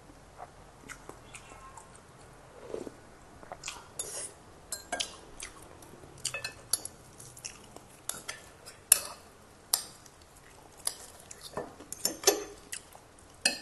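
Metal spoon and fork clinking and scraping on a ceramic plate of rice in irregular sharp clicks, with chewing close to a clip-on microphone.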